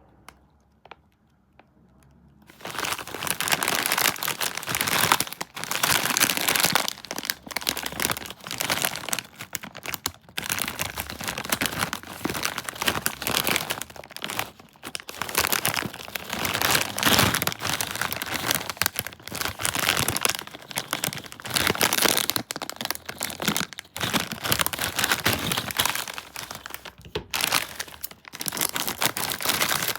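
Close crinkling and crunching of a bag of Bugles nacho cheese corn snacks being handled. It starts about two and a half seconds in after a few faint clicks, and then runs densely without a break.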